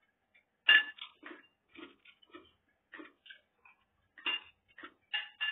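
Metal spoon clinking against a china bowl while eating, with softer clicks between. The loudest ringing clink comes about a second in, and two more come near the end.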